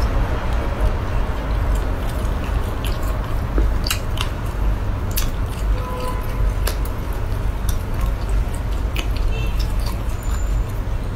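Wet squishing and scattered sharp clicks of cooked sea snail meat being pulled apart, dipped and chewed, over a steady low rumble.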